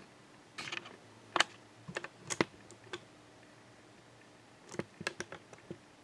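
Scattered, irregular clicks of a Lenovo ThinkPad E545 laptop's keys and buttons being pressed. They come in a group of quick presses from about half a second to three seconds in, and a second group near five seconds.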